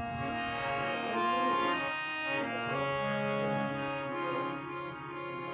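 Indian harmonium playing a melody of held reed notes over a lower sustained note.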